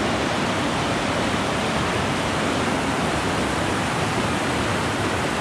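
Rocky mountain stream rushing over boulders: a steady, loud wash of white water.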